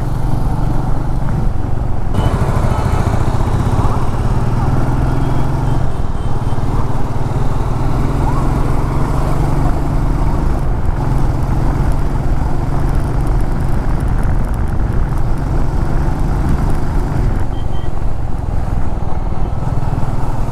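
Royal Enfield Meteor 350's single-cylinder engine running steadily at cruising speed under way, heard from the rider's seat over a steady rush of wind and road noise.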